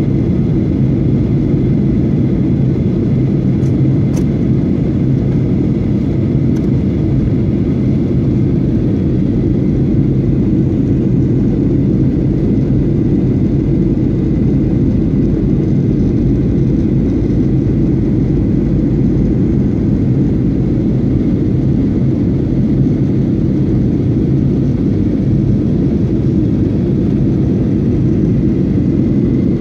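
Jet airliner cabin noise in flight: a steady low rumble of engines and rushing air, with a faint thin whine above it.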